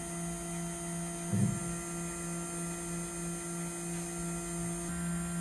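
Steady electrical hum from a powered desktop CNC lathe, with a brief low bump about a second and a half in and a lower hum joining near the end.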